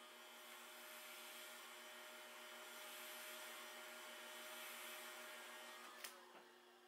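A handheld heat gun blowing: a steady rush of air with a faint whine. It is switched off with a click about six seconds in.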